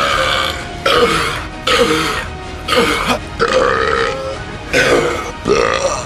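A young man burping loudly over and over after chugging soda, about six burps roughly a second apart, several dropping in pitch as they go.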